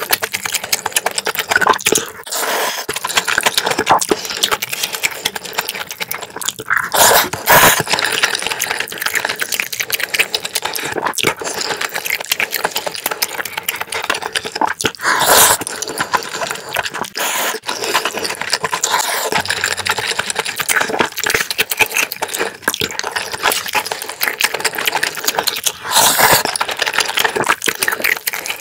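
Close-miked eating sounds of black-bean-sauce noodles and rice: constant wet chewing and lip smacks, with three longer, louder slurps spread through.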